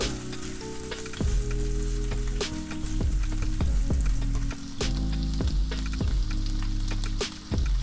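Smoked duck slices and minced garlic sizzling as they fry in a nonstick pan, with sharp clicks of chopsticks against the pan as they are stirred. Background music with sustained low notes plays underneath.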